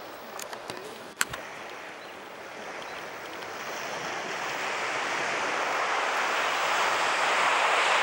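Ocean surf washing in, a steady rush that swells over several seconds and is loudest near the end. A few sharp clicks come about a second in.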